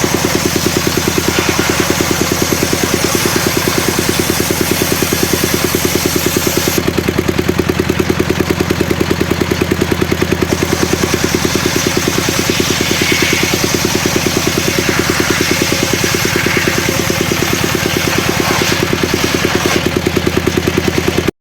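Engine of a homemade circular saw rig running steadily at idle, with an even, rapid pulse.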